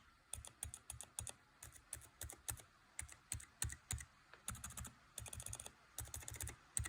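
Quiet, muted keystrokes on a mechanical keyboard fitted with stock Gazzew Ice Blue switch bases, clear tops and silent linear stems: short dull clicks typed irregularly, with a quick flurry about two thirds of the way through. These bases have not been retooled and are described as quite scratchy and not very smooth.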